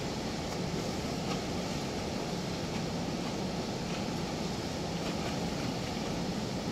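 Steady rushing of water pouring through a weir's sluice gate, an even, unbroken roar.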